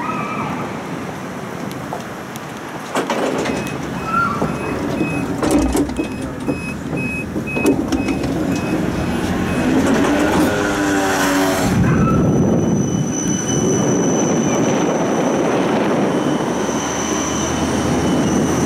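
Interior of a Siemens Combino low-floor tram pulling away from a stop. A short beep repeats for a few seconds, then the traction drive's whine steps up in pitch as the tram accelerates. After that a steady high whine runs over the rumble of the wheels.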